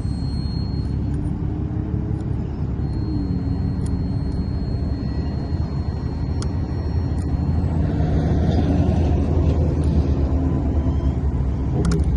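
Steady low rumble of motor vehicles running, growing a little louder near the end, with a few faint clicks.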